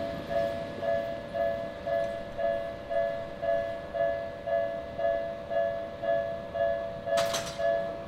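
Japanese railway level-crossing warning bell ringing, a repeating electronic ding about twice a second, signalling an approaching train as the barriers come down. A short sharp noise cuts across it about seven seconds in.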